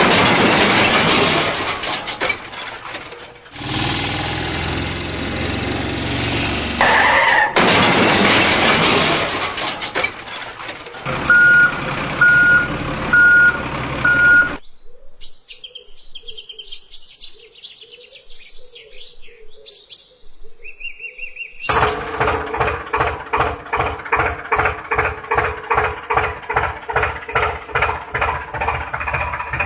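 A run of vehicle sound effects: loud bursts of rushing noise, then four short, evenly spaced beeps like a reversing alarm, then a quiet stretch of bird chirps. From about two-thirds of the way in, an engine idles with a regular knocking pulse.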